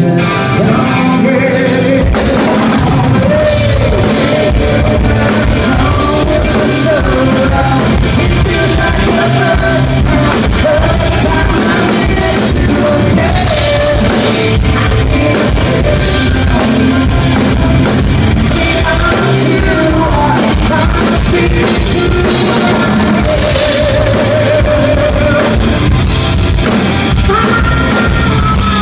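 Rock band playing: drum kit and guitar with a singer's voice over them.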